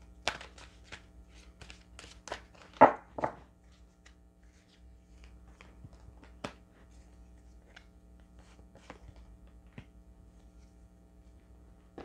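A deck of cards being handled: cards flicked and snapped out of the deck and laid down, a quick run of crisp snaps in the first few seconds with the loudest about three seconds in, then sparser light clicks.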